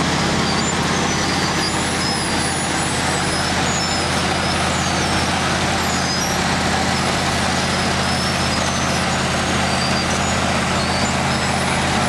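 Asphalt milling machine (cold planer) working alongside a dump truck: a steady, loud diesel drone with a rough grinding noise over it as the old road surface is milled off and conveyed into the truck.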